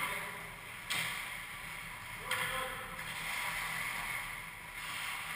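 Ice-skate blades hissing and scraping on the ice, with two sharp knocks of hockey sticks and pucks, one about a second in and one a little over two seconds in.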